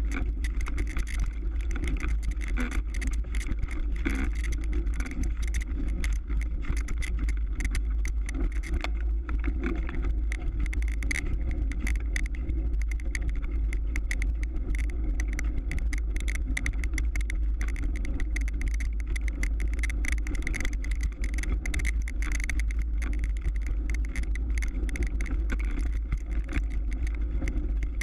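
Mountain bike riding over ice and hard-packed snow, heard through a camera riding along: a steady low rumble with constant small rattles and clicks.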